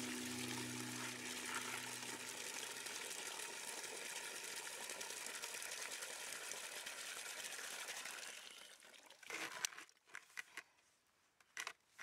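Water from a frost-free yard hydrant pouring steadily into a plastic heated chicken waterer, then stopping about nine seconds in. A few light knocks and clinks follow as the bucket is handled.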